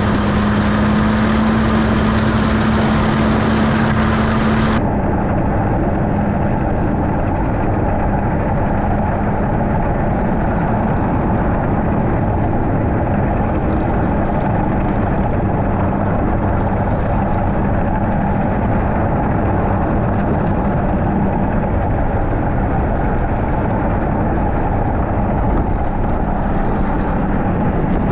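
Snowmobile engine running steadily at cruising speed while towing a loaded sled. About five seconds in, the sound abruptly turns duller, losing its hiss.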